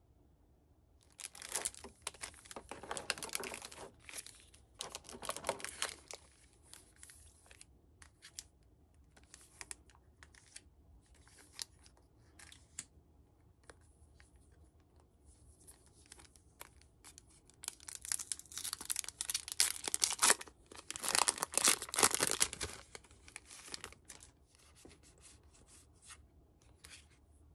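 Clear plastic packaging crinkling in two spells near the start, then scattered light rustles. About two-thirds of the way through comes the loudest spell of tearing and crinkling, as a foil Pokémon card booster pack is ripped open. It ends with faint soft ticks of cards being handled.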